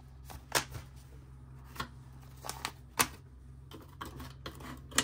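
Paper banknotes being handled between counts: about half a dozen short, crisp rustles and taps, irregularly spaced.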